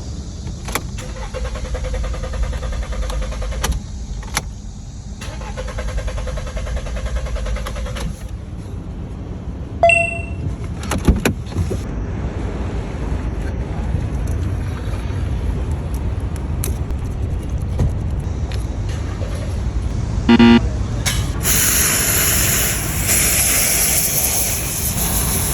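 Steady low rumble of a car, with scattered clicks, a short electronic chime about ten seconds in and another beep near twenty seconds, then a loud hiss over the last few seconds.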